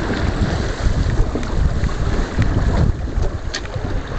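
Wind buffeting the microphone on a sailboat under way: a low, gusty noise with water washing against the hull beneath it and a few faint ticks.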